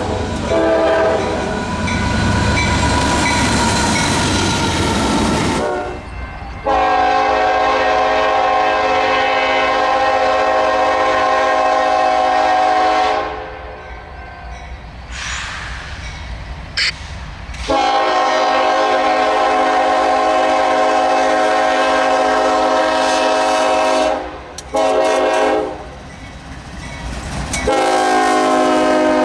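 Locomotive air horn sounding a chord in several long blasts and one short one, the short blast coming just before the last long one. In the first few seconds a passing train's rumble and wheel clatter sound under a fainter horn.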